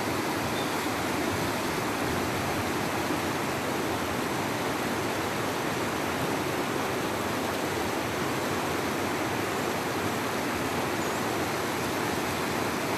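Fast, shallow mountain river rushing over stones and small rapids: a steady, unbroken rush of water.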